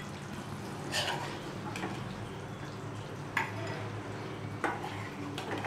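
A steel ladle scooping thick curry out of a steel kadai, clinking against the pan about five times, with short sharp knocks spread a second or so apart over a steady low hum.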